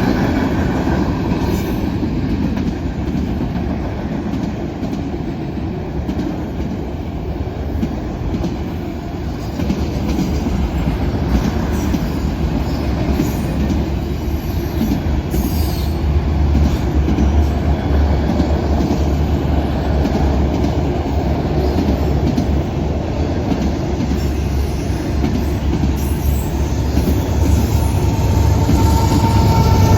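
Canadian Pacific manifest freight train rolling past, a steady rumble of wheels on rail. A thin high wheel squeal comes in near the end.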